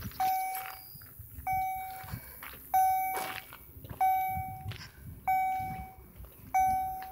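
Level crossing warning bell ringing in slow, even strokes, six times about 1.3 s apart, each stroke a clear tone that fades away. It sounds before the barriers come down, warning that a train is approaching.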